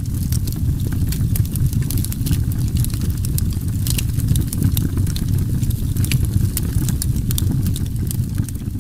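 Wood campfire crackling: irregular sharp pops and snaps over a steady low rumble.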